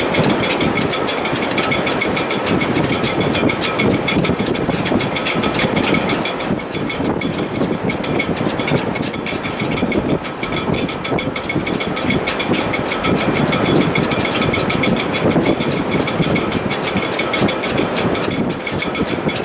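Strong wind in a sailboat's shrouds and rigging in heavy weather: a steady rushing noise with thin whistling tones held over it and a fast buzzing vibration.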